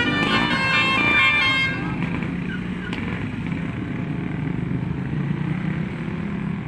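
Bus telolet horn playing a multi-note melody, cutting off about two seconds in, followed by the bus engine running steadily.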